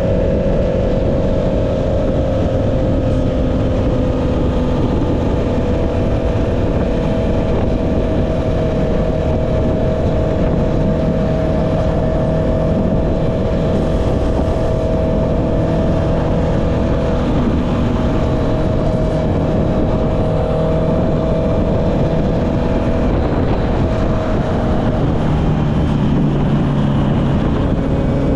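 Honda CB650R's inline-four engine with an Akrapovic exhaust running at steady cruising revs, over heavy wind and road noise. About three-quarters of the way through, the engine note drops lower.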